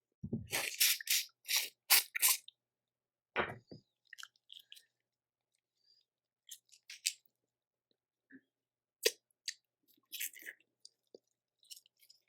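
Boiled shellfish claws being cracked open and eaten close to the microphone: a quick run of sharp shell cracks and snaps in the first couple of seconds, another crack a second later, then scattered small clicks of shell and chewing.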